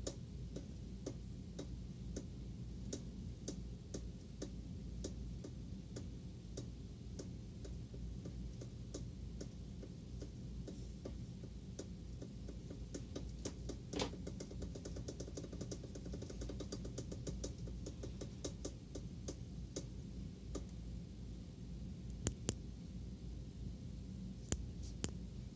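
Rhythmic mechanical ticking from a rotating drive part with the drive train removed, about two clicks a second at first, then faster and denser in the middle, with a steady low hum underneath; a freewheel ratchet's clicking is included for comparison. The squeal that comes with the fault at its worst is not heard.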